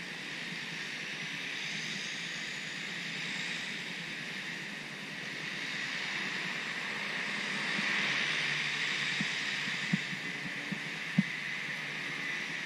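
Steady hiss of heavy rain, swelling a little partway through, with a few soft low thumps near the end.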